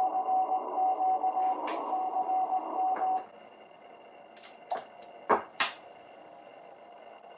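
Morse code (CW) signal received on an Icom IC-7300 tuned to the 20 m band: a single beep tone keyed on and off over band noise. About three seconds in it cuts off as the antenna coax is disconnected, leaving a faint hiss. A few sharp clicks follow, the loudest about two seconds later: the coax connectors being swapped.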